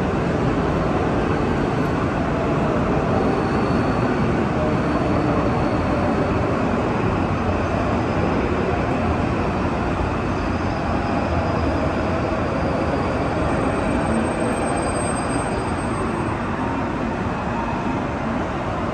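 Steady rumble of trains and general railway-station noise in a large covered station, easing off slightly near the end.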